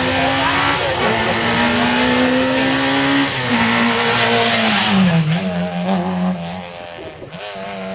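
Peugeot 205 rally car's four-cylinder engine at full throttle, climbing in pitch with drops at the gear changes about one and three seconds in. About five seconds in the pitch falls as it lifts off, and it runs lower and quieter near the end.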